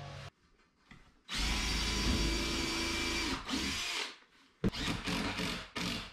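Cordless drill-driver driving screws into a softwood cabinet frame. It runs steadily with a whine for about two seconds, then gives three short bursts near the end as a screw is driven home.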